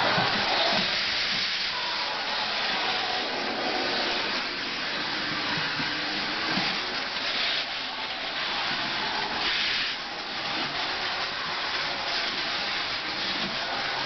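Canister vacuum cleaner running, a steady rushing hiss of suction that swells briefly now and then as the nozzle is moved over the rug.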